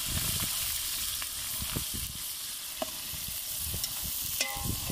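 Sliced onions sizzling as they fry in hot oil in a large aluminium pot, with a metal slotted spoon stirring and scraping through them. A single sharp metallic clink rings out near the end.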